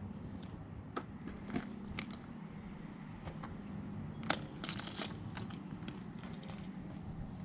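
Scattered light clicks, clinks and crinkly rustling from hands working on the pump's float and power wires and their tape and fittings, with a sharper click about four seconds in, over a steady low hum.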